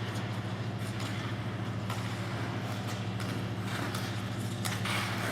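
Figure skate blades stroking and scraping on ice, the loudest scrape about four to five seconds in, over a steady low hum.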